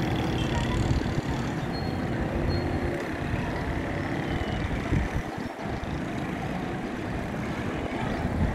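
Street traffic noise: a steady rumble of vehicles running along a busy city road.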